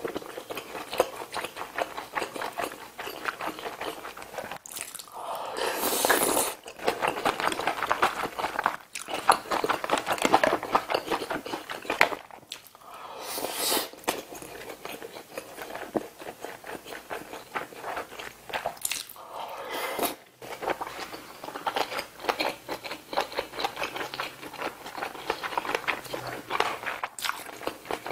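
Close-miked chewing and smacking of a mouthful of kimchi-jjim (braised kimchi with pork belly and sausage), a dense run of wet mouth clicks with a few louder swells.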